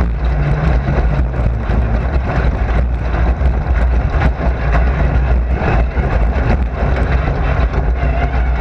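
Racing car engine running steadily under load, heard from inside the car, with frequent short knocks and rattles from the car's body.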